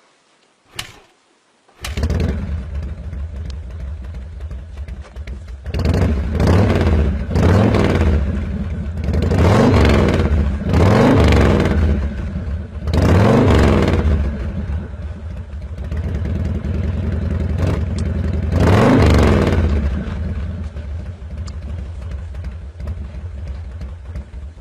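An engine running steadily and revving up and back down about seven times, most of them in quick succession in the middle.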